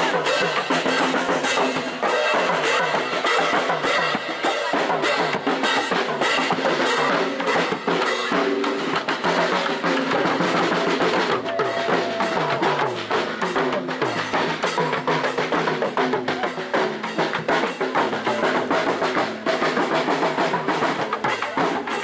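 Marching drum line playing a rhythm together on bass drum, snare drums and tenor drums, with dense, rapid strikes throughout.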